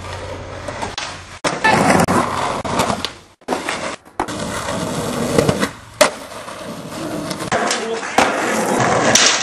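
Skateboard wheels rolling on concrete, broken by several sharp clacks and slaps of boards hitting the ground on tricks and falls, in short clips that cut off abruptly.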